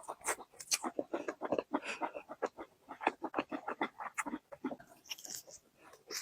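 Close-up mouth sounds of someone chewing chicken drumstick meat: rapid wet smacks and clicks, growing sparser in the last couple of seconds.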